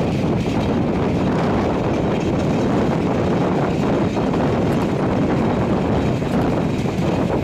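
Moving train running steadily along the track: an even, loud rumble of wheels and carriage with some wind.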